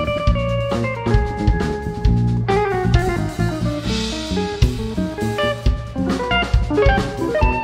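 Live instrumental jazz-rock played in an odd time signature: a drum kit with busy kick, snare and cymbal hits, electric bass, and an electric guitar playing a fast melodic line, with a cymbal wash about four seconds in.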